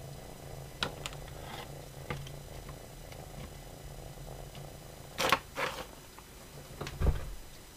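A domestic cat purring, a steady low rumble that fades out about halfway and comes back briefly near the end. Light taps and clicks run through it, with two sharp knocks a little past five seconds in and a heavier thump about seven seconds in.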